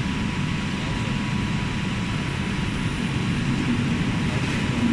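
Large rotating-drum stir-fry machine running with its drum turning, a steady mechanical roar with a faint whine in it.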